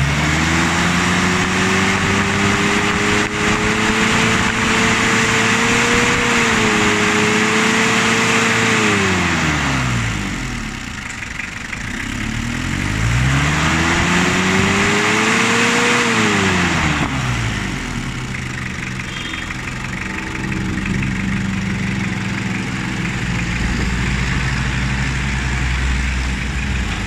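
Toyota 2C four-cylinder diesel engine revved up and held for several seconds, dropped back, revved again more briefly, then settling to a steady idle. The engine is being run while its injection pump timing is adjusted.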